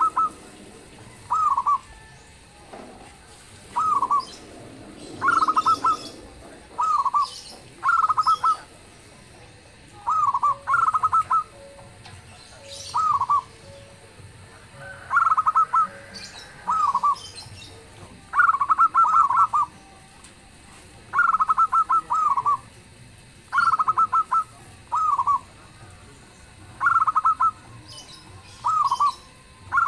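Zebra dove (perkutut) cooing: short phrases of rapid staccato coos, repeated about every one to two seconds, some phrases overlapping. Faint high chirps of small birds sound behind them.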